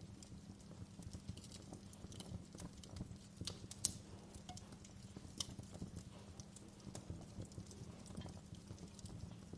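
Wood fire crackling in a fireplace, with irregular sharp pops and snaps; the loudest pop comes about four seconds in. A low, steady hum runs underneath.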